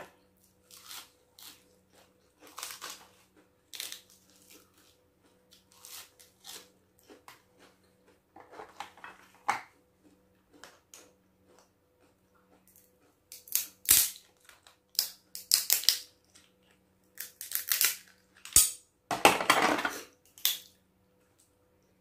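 Cooked crab shell cracking and crunching as a claw is broken open with a crab cracker and by hand: a run of sharp snaps and crunches, sparse at first and coming thick and loud in the second half.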